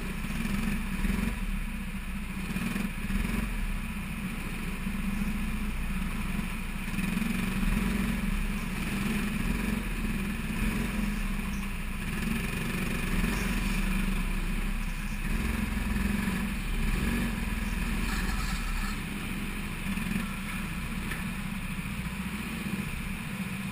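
Kart engine heard from on board, running steadily at low revs and idling as the kart rolls slowly through the pit area.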